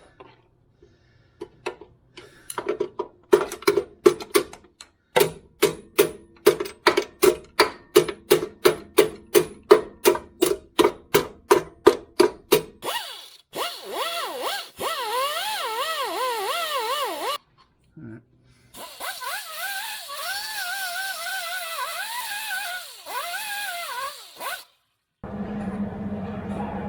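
Hammer blows on metal, about two a second and ringing. Then an angle grinder cuts metal in two passes, its pitch dipping and recovering as it bites, while clearancing the loose control-arm bushing's mount.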